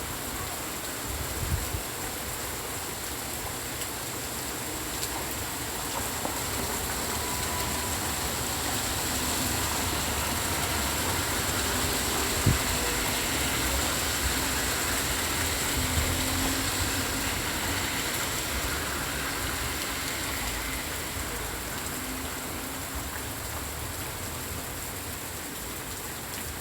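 Steady rain hissing, with a low rumble of distant thunder that swells and then fades through the middle.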